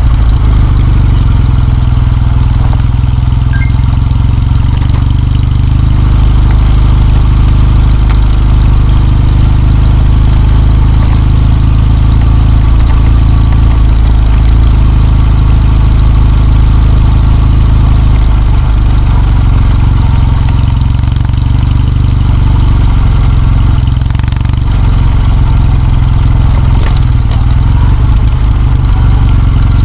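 Kawasaki W650's air-cooled parallel-twin engine running steadily, a loud low note with no pauses.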